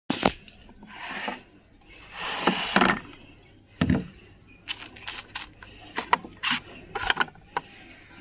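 Handling noise: irregular clicks and knocks with a few scraping rubs, as plates and bowls are moved about on a wooden table.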